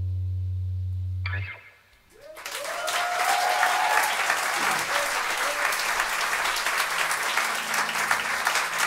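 The band's last low note is held and then stops about a second and a half in; after a short hush the audience bursts into applause, with a whoop or two of cheering near the start.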